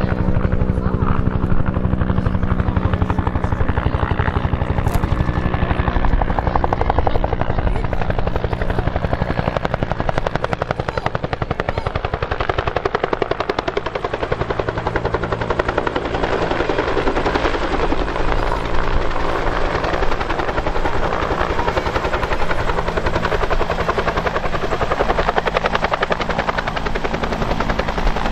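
Bell UH-1 (Huey) military utility helicopter flying in low overhead, its two-bladed rotor beating in a rapid, steady chop that stays loud.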